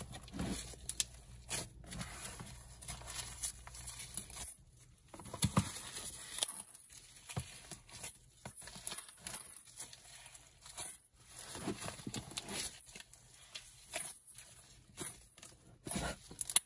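Clear microfoam slime packed with foam beads and foam balls being squeezed and kneaded by a gloved hand, giving irregular crackling and popping.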